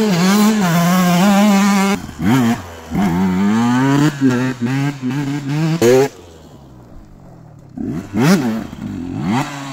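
KTM SX 125 single-cylinder two-stroke dirt bike engine revving hard and holding high. It is then blipped in short rising-and-falling revs, drops low for about two seconds, and revs up again in sharp blips near the end.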